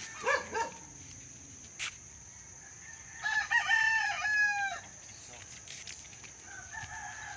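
A rooster crows once, about three seconds in, a call of about a second and a half that drops in pitch at the end; a fainter crow follows near the end. Two short calls come just before the crowing, near the start.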